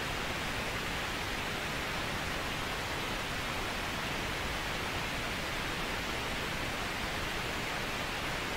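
Steady, even hiss of static with no distinct events and no change in level, the sign of a fault on the stream's audio feed.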